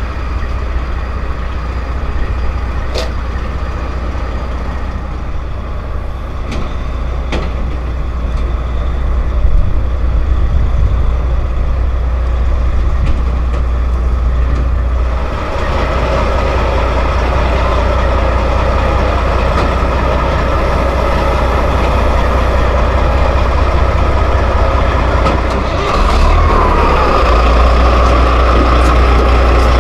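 Heavy flatbed delivery truck's diesel engine running as it backs in, a steady low rumble that grows louder about halfway through as the truck comes close.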